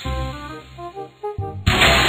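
Background music of short pitched notes, then a sudden loud shattering crash like breaking glass about a second and a half in: the sound effect of the cartoon monster cracking and breaking apart.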